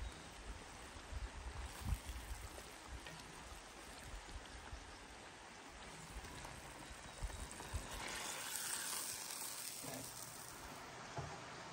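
Steady rush of flowing river water, with a wooden spatula stirring and knocking in a cast-iron wok of stew. The hiss grows brighter for a couple of seconds near the end.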